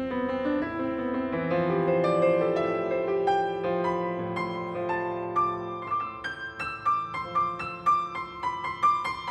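Piano music: notes struck over sustained chords, and from about halfway a repeated higher note sets a steady pulse.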